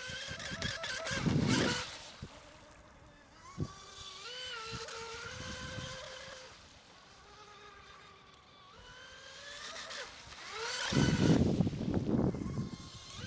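Electric RC mono racing boats running at speed, their brushless motors giving high whines that rise and fall in pitch as they lap. Boats pass close with a loud rush about a second in and again from about eleven seconds.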